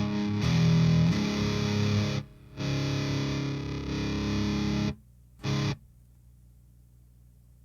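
Distorted electric guitar played through a KT88-powered Driftwood Mini Nightmare tube amp: two ringing chords, then a short chord stab about five and a half seconds in. Each chord cuts off abruptly, leaving only a faint low amp hum.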